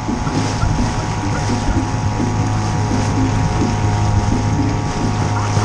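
Outboard motor of a small inflatable boat running at a steady speed, with wind buffeting the microphone.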